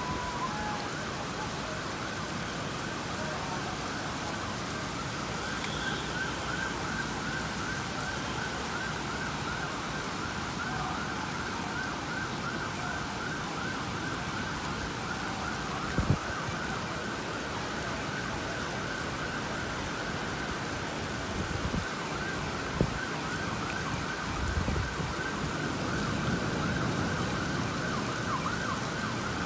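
An emergency vehicle siren sounds in a rapid up-and-down yelp, over the steady hiss of heavy rain on the street. Two sharp knocks come partway through.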